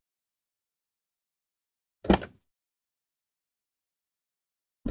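Silence, broken once about two seconds in by a short, loud sound effect lasting about a third of a second as the intro title cards change.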